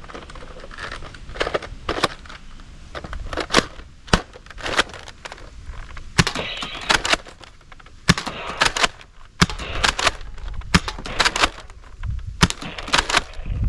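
Plastic toy blasters being handled, giving many irregular sharp clicks and clacks with some rustling in between.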